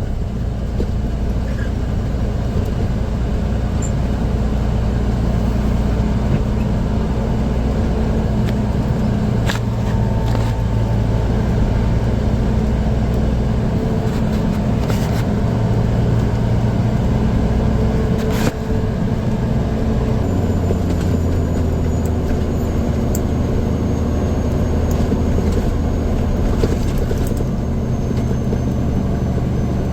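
Grain truck's engine running steadily, with a few sharp clicks and knocks; its pitch steps up a little about two-thirds of the way through.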